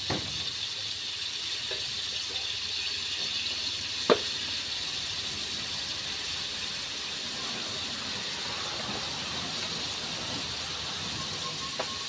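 Sliced pork, squid and shrimp sizzling in hot oil in a steel wok: a steady hiss, with a few sharp knocks, the loudest about four seconds in.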